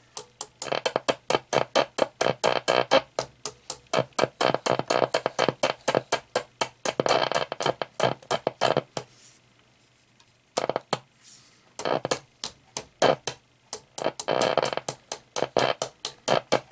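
Small mallet tapping rapidly on an AF117 germanium transistor inside a switched-on Roberts R300 transistor radio, several taps a second, with a pause of about two seconds just past the middle. The taps set off crackles and bursts of radio sound from the loudspeaker that cut in and out: tin whiskers inside the transistor breaking apart while the transistor tries to work.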